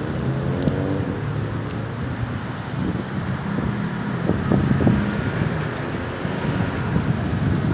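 Road traffic: vehicle engines and tyre noise with wind on the microphone, and an engine note falling in pitch in the first second.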